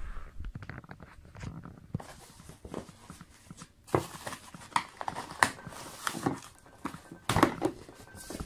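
Cardboard box flaps and bubble wrap being handled by hand: irregular rustling and crinkling with sharp crackles and knocks, the loudest about four seconds in, again a second and a half later, and near the end.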